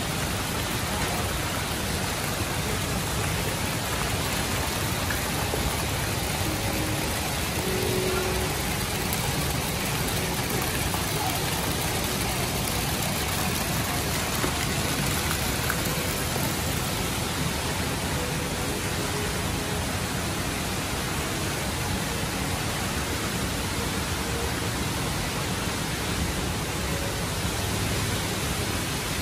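Steady rushing noise of a large indoor waterfall's falling water, with faint distant voices underneath.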